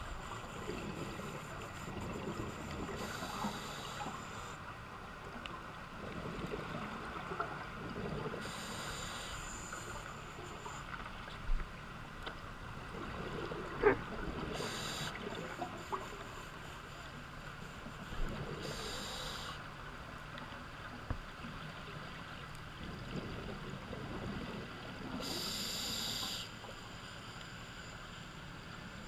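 Muffled underwater ambience heard through a camera housing at depth, with a rush of exhaled scuba bubbles about every five seconds and a few sharp clicks in between.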